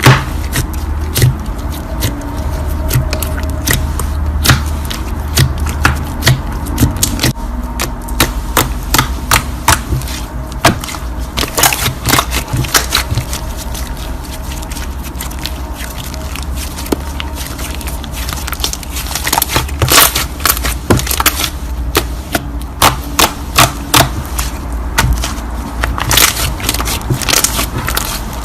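Slime being squeezed and kneaded by hand, making many irregular sharp clicks and crackling pops. A low rumble lies underneath and eases about seven seconds in.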